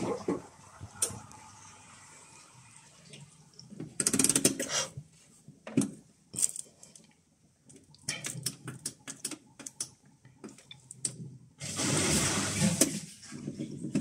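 Whirlpool AWE7516/1 washing machine: its drum spin stops abruptly at the start. This is followed by scattered clicks and knocks from its control-panel buttons being pressed and the program selector knob being turned while stepping through service test mode.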